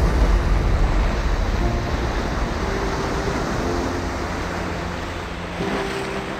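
Sea surf washing and breaking over rocks, with a heavy low rumble of wind on the microphone, loudest in the first second. Soft background music comes in about a second and a half in.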